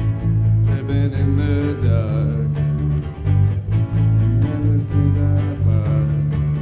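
Live band playing an instrumental passage: a strummed acoustic guitar over electric bass guitar notes.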